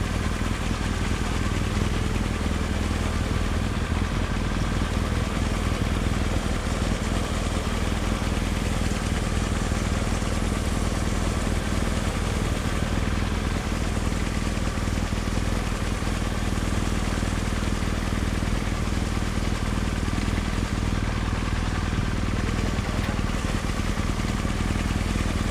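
Motorcycle engine running steadily while riding, over an even rush of wind noise on the helmet-mounted microphone.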